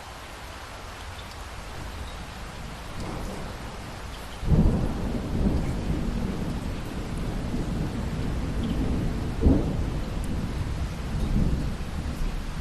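Steady rain, then about four seconds in a sudden loud thunderclap that rolls on as a deep rumble, with a second sharp crack of thunder partway through.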